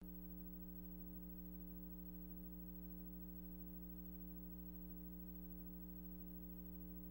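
Faint, steady electrical hum with a stack of buzzing overtones, the kind of mains hum left on a tape transfer, under an otherwise silent title card.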